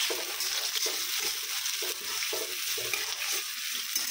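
Sliced onions sizzling in hot oil in a stainless steel wok, a steady hiss, while a spatula stirs them with repeated scraping strokes against the pan, a few a second.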